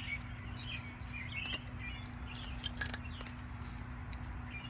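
Small birds chirping repeatedly, with a couple of sharp clicks and a steady low hum underneath.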